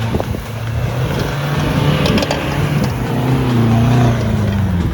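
Off-road vehicle engine working hard and revving up from about three seconds in, with a cluster of sharp cracks about two seconds in.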